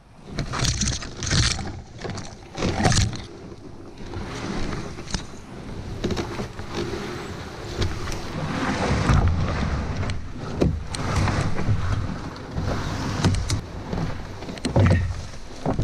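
A canoe being dragged and pushed through thick brush: branches and leaves scraping and rustling against the hull, with irregular knocks and twig crackles.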